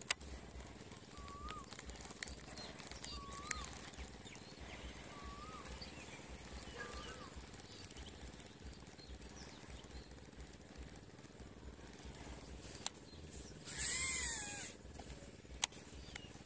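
A bird repeating a short, rising-and-falling whistled note about every two seconds, with a few sharp clicks between. A louder, noisier burst with a longer arching call comes near the end.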